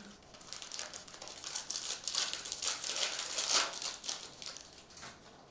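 Foil wrapper of a Mosaic soccer trading-card pack being torn open and crinkled by hand: a dense crackling that builds about a second in and dies away near the end.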